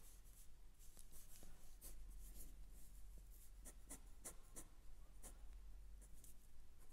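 Fine-tip pen drawing short strokes on a sheet of paper: faint, quick scratches, one after another.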